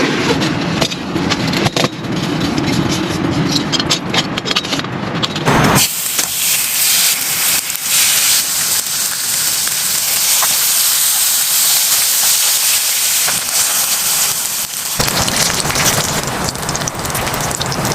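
Rain falling hard, a steady hiss with sharp drops clicking close by in the first few seconds. The sound shifts suddenly about six seconds in to a brighter, higher hiss, and again near the end.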